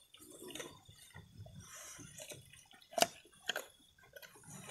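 Goat eating fresh leaves: irregular wet chewing and mouth clicks with leaves rustling, and one sharp click about three seconds in.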